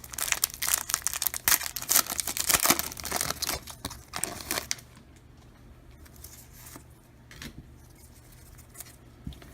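A trading-card pack's wrapper being torn open and crinkled: dense crackling for about five seconds, then only faint rustling and handling noises.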